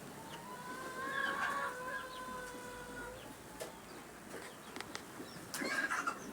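Chickens calling, with one long drawn-out call held for about two and a half seconds near the start, then scattered clicks and a short burst of clucking near the end.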